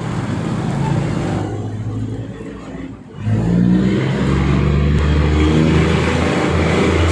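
Diesel train engine running with a low steady note. It drops away briefly about three seconds in, then comes back louder with its pitch rising as it picks up power.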